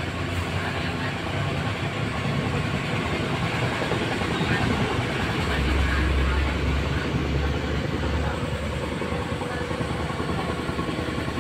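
Steady low rumbling background noise with a hiss over it, swelling a little about six seconds in.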